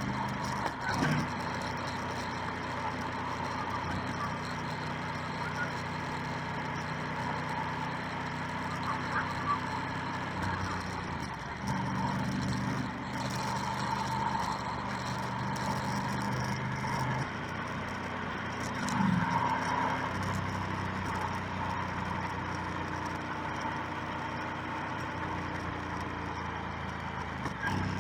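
Motorcycle engine running under way, with its note stepping up and down a few times as the rider works the throttle and gears, over steady road and wind noise.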